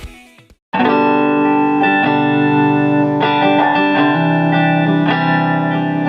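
A brief fade of earlier music into a moment of silence, then a J-Craft T-3V Telecaster-style electric guitar coming in with sustained, ringing chords that change every second or so.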